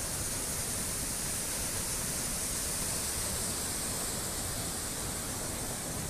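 A large waterfall in full flow: a steady, unbroken rush of falling water.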